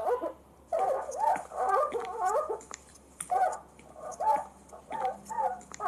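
A cat meowing in a series of short calls that rise and fall in pitch, coming in clusters with brief pauses between them.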